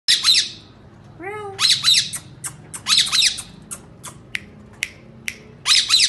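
Ringneck parakeets squawking in loud, harsh bursts, with short sharp single calls in between and one smoother call that rises and falls in pitch about a second in.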